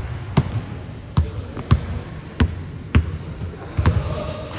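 A basketball bouncing on a court floor, about six sharp bounces at uneven intervals of roughly half a second to a second, as in dribbling.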